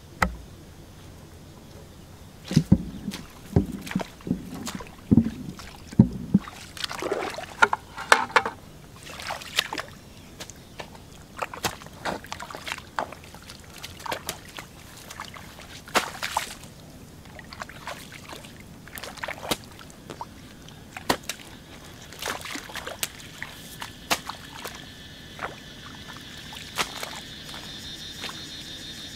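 Muddy water sloshing and splashing as a hoe digs into a flooded paddy ditch and mud is scooped out by hand: dull thumps in the first few seconds, then irregular splashes and wet slaps. A steady high-pitched calling joins near the end.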